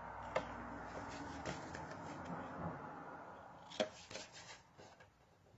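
Scissors snipping small corners out of cardstock: a few sharp snips, the loudest a little before the four-second mark, over the rustle of the card being handled and turned.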